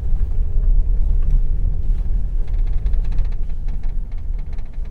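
Mahindra Scorpio-N moving, with a steady low rumble and, for about a second in the middle, a faint rapid rhythmic ticking. This is the hand brake noise that the mechanic traces to a stone caught in between.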